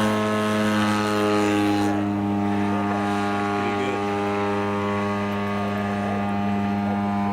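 Radio-controlled model airplane engine and propeller running steadily at one constant pitch. A high hiss over the engine fades about two seconds in.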